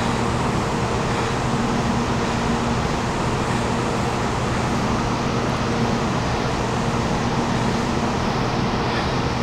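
Steady hum of a Taiwan High Speed Rail 700T trainset standing at the platform with its onboard equipment running: an even drone with a few steady low tones.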